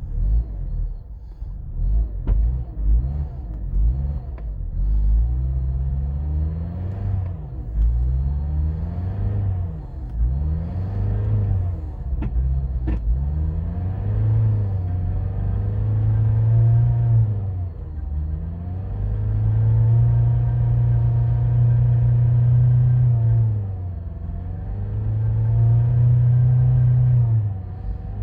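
Mazda 6 engine running with revs that surge up and down over and over instead of settling to idle. It is ragged at first, then later hangs at high revs for a few seconds at a time. This is the poor, high idle that followed a piston replacement.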